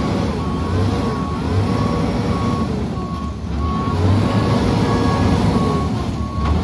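Tri-axle dump truck's reversing alarm sounding regular, evenly spaced beeps, over the heavy rumble of the truck's diesel engine working under load, swelling and easing: the truck is in reverse.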